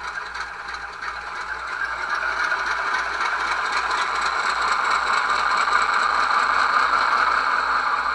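Sound decoder in an HO-scale model locomotive playing a recorded ALCO 244 diesel engine through its small speaker, growing steadily louder over the second half.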